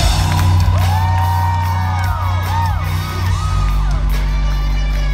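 Live rock band playing through an arena PA, heard from within the crowd: heavy sustained bass notes that shift to a deeper note about halfway through. High rising-and-falling whoops from the crowd glide over it in the first few seconds.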